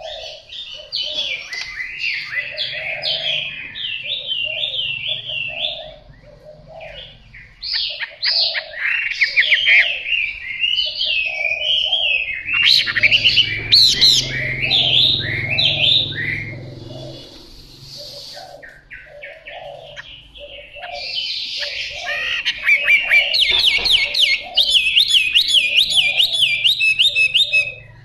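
Caged Chinese hwamei (melodious laughingthrush) singing: loud phrases of fast, varied warbles and whistles, with a short lull in the middle, ending in a quick run of repeated whistled notes. It is a fighting-strain hwamei practising its song.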